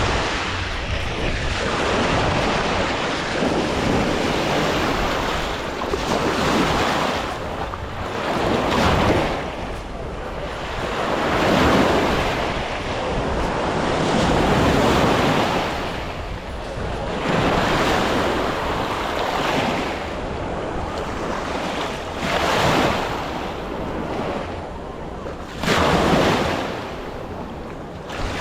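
Small Mediterranean waves breaking and washing up on the shore, the hiss swelling and ebbing about every three seconds, with wind rumbling on the microphone.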